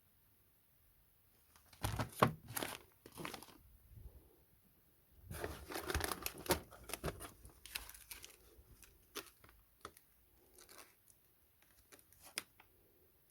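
Packaging being torn open and crumpled by hand, in two main bouts of crackling rustle with scattered smaller crinkles after.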